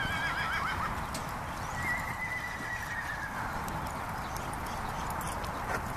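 A horse whinnies with a wavering call right at the start, over the dull hoofbeats of horses cantering on soft arena dirt. A thin, steady high tone follows about two seconds in.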